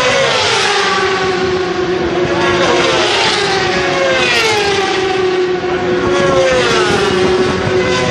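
A pack of racing superbikes passing at speed, several high-revving engines overlapping. Their pitch falls and climbs again several times as they go by.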